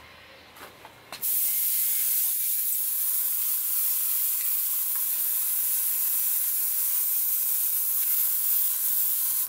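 Airbrush spraying thinned paint: a steady high hiss of air and paint mist that starts about a second in, after a few light clicks.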